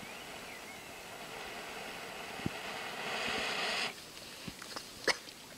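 Someone blowing a long steady breath into a smouldering tinder bundle to bring a friction-fire ember to flame: a breathy hiss that swells for about four seconds, then stops abruptly. A sharp click follows about a second later.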